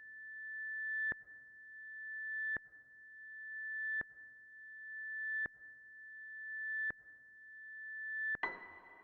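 Synthetic suspense sound effect: a single high electronic tone, like a reversed sonar ping, swelling up over about a second and a half and cutting off sharply, repeated six times at an even pace. Near the end a louder, fuller ringing hit comes in.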